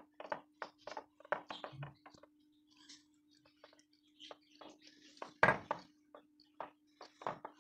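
Wire whisk clinking and tapping against a glass bowl, stirring flour and spices into tempura batter as milk and egg are poured in: irregular light taps, with one louder knock about five seconds in.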